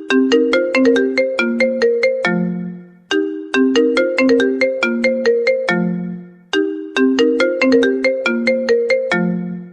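Smartphone ringtone: a short melody of quick notes that repeats about every three and a half seconds, each pass ending on a held low note that fades out.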